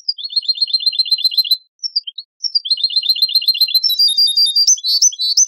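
European goldfinch song from an old Moroccan 'Sebta-style' training tape used to tutor goldfinches: fast trills of quickly repeated notes, a short break about a second and a half in, a second trill, then varied sharp rising whistles near the end.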